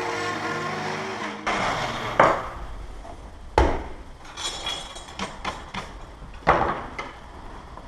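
Background music cutting off about a second and a half in, then three sharp hammer blows on a chisel, with lighter taps and clicks between them. The blows are cutting the recess for a deadbolt's striker plate into a timber door jamb.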